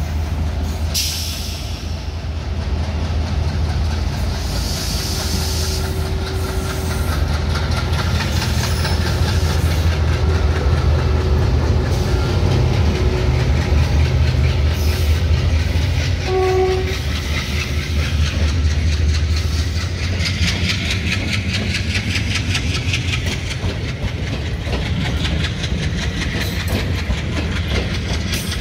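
A diesel-locomotive-hauled passenger train passes close by, with a heavy low rumble of the locomotive and its wheels clattering rapidly over the rail joints. The horn gives one short toot about sixteen seconds in.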